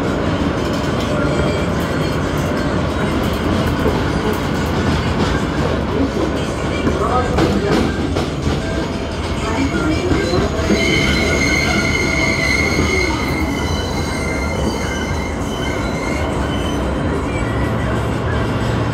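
New York City Subway L train heard from inside the car as it runs on elevated track, with a steady rumble and wheel-on-rail noise. There are a few sharp rail clicks around seven to eight seconds in, and a high-pitched wheel squeal from about eleven to thirteen seconds in.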